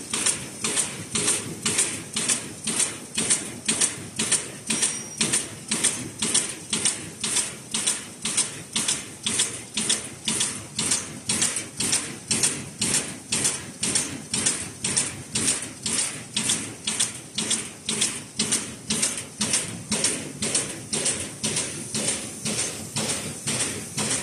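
Air bubble bag making machine running, its sealing and cutting head cycling at a steady rhythm of a little over two strokes a second, each stroke a sharp, hissing clack.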